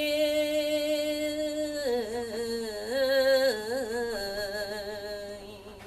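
A man singing a Thai Buddhist moral song unaccompanied. He holds one long, steady note, then about two seconds in breaks into a wavering, ornamented run on a vowel that fades toward the end.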